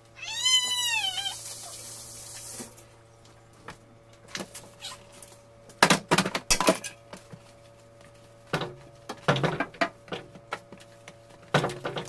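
A cat meows once near the start, a single call about a second long that rises and then falls in pitch. After that come sharp knocks and rattles of plastic fridge drawers and shelves being handled and wiped.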